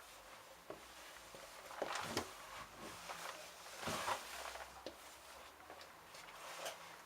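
LG F1222TD direct-drive washing machine in its prewash, the drum turning the wet load over: soft swishes of water and falling laundry, loudest about two and four seconds in, over a faint steady hum.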